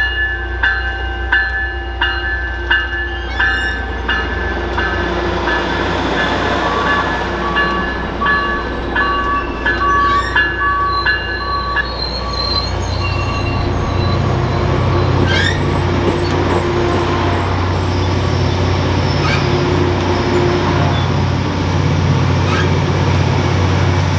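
A bell dings evenly, about one and a half times a second, for roughly the first twelve seconds as a Caltrain train moves through the station. The train's low rumble grows louder about halfway through and carries on steadily to the end.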